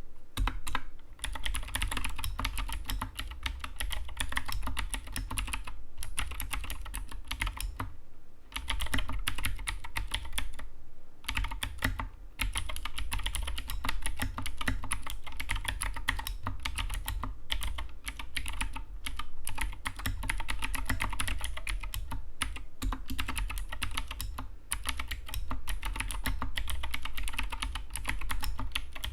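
Continuous fast typing on an Anne Pro 2 60% mechanical keyboard: a dense clatter of key clicks, with brief pauses about eight and eleven seconds in.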